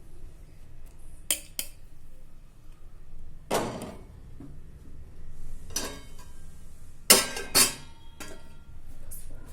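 Kitchen utensils and dishes clinking and knocking together: a series of separate sharp clinks, the two loudest a little after seven seconds in, with a faint ringing after them.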